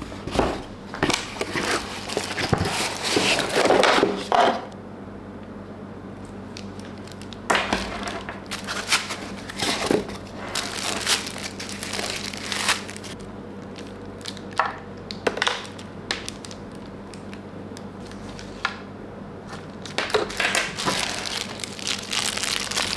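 Packaging being unwrapped and handled: irregular crinkling and rustling in several bouts, with quieter pauses between them.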